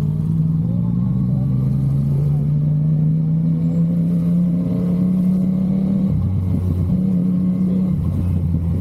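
Yamaha MT-09's three-cylinder engine running under way. Its note climbs slowly for about six seconds, then drops abruptly, climbs briefly and drops again near the end.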